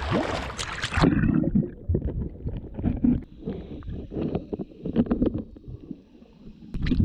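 Splashing water as the face and camera dip under the sea surface, then about a second in the sound turns muffled: water churning and thumping against an underwater action camera as the snorkeler swims. Splashing returns near the end as the camera comes back up.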